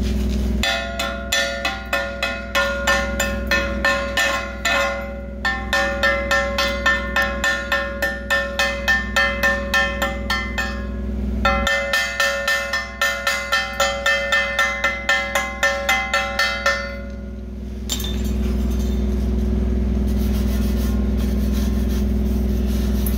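Steel being struck over and over, about two to three blows a second, each blow leaving the plate ringing, most likely a chipping hammer knocking slag off fresh stick welds. It pauses briefly twice and stops near the end, leaving a steady low hum.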